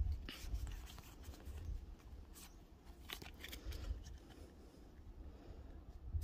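Pokémon trading cards being thumbed through by hand: faint sliding with a few soft flicks as each card is pushed behind the next, over a low wind rumble on the microphone.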